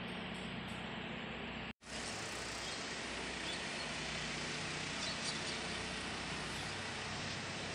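Steady background ambience of a quiet open-air walkway: a constant hiss with a low hum, broken by a brief dropout to silence about two seconds in. A few faint, short high chirps come a little past the middle.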